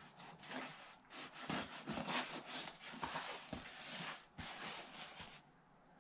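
A knife blade sawing and scraping along the top seam of a cardboard shipping box, a run of rough strokes that stops about five seconds in.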